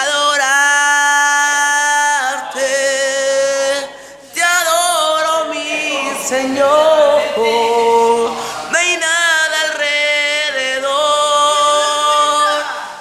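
A young man singing a Spanish worship song, holding long notes with slides between them and a short break about four seconds in.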